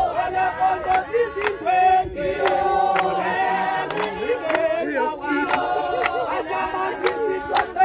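A group of men and women singing a song together, with hand claps keeping time at about two a second.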